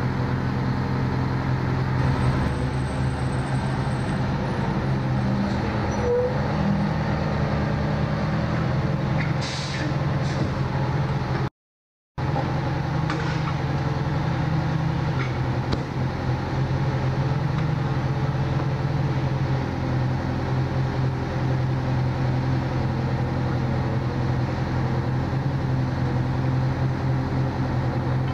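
Fire engine's engine idling steadily, a constant low hum. The sound drops out completely for about half a second near the middle.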